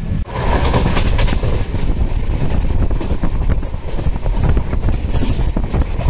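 Train running on the rails: a steady rumble with many irregular knocks from the wheels.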